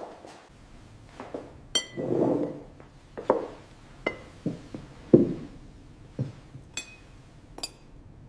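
A series of separate knocks and light clinks of hard objects being handled and set down, some dull, several with a short high ring; the loudest is a dull thud about five seconds in.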